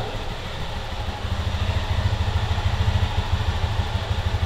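Single-cylinder engine of a custom street motorcycle with a swapped-in engine, idling with a steady, rapid low beat, a little louder from about a second in.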